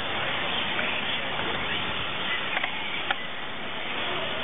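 Small electric 1:18-scale RC touring cars whining and changing pitch as they lap the track, over a steady outdoor hiss. Two sharp clicks come a little past halfway.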